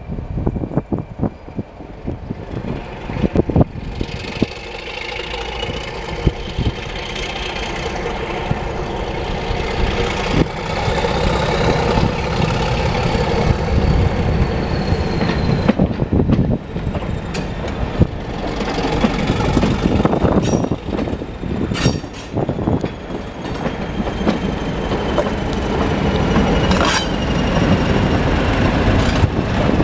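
Class 31 diesel locomotive's English Electric V12 engine working as it propels a train of coaches past, growing louder as it comes closer. High wheel squeal rises and falls in pitch over it, and sharp clicks from the wheels on the track come more often near the end.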